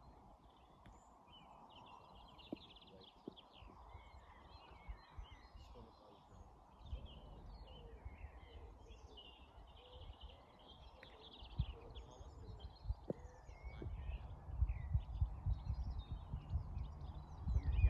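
Birds singing and chirping steadily, with wind buffeting the microphone in low gusts from about seven seconds in, strongest near the end. A few faint clicks.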